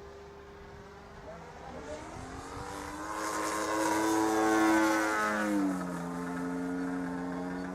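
Single-cylinder two-stroke petrol engine of a 35cc radio-controlled aerobatic model plane, turning a large propeller in flight. It grows louder to a peak about four to five seconds in, then its pitch drops sharply and it settles into a steady lower tone.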